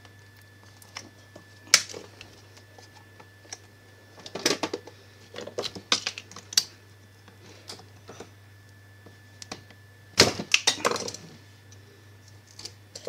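Plastic clicks and scrapes of a screwdriver levering a hair dryer's fan off its motor shaft. They come in scattered bursts, the loudest about ten seconds in.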